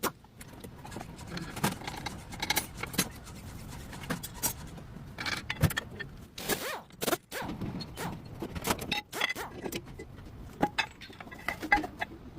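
Hand tools and brake parts being handled: irregular metallic clinks, rattles and scrapes, with no steady squeal.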